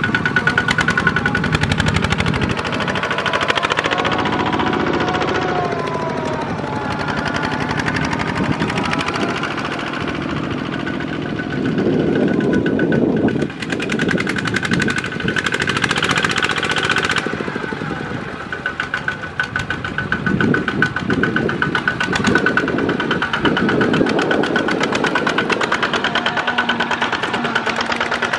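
Single-cylinder diesel engines of Kubota two-wheel walking tractors chugging under load as several of them pull trailers of rice sacks past one after another, the sound swelling and easing as each one comes close and moves on.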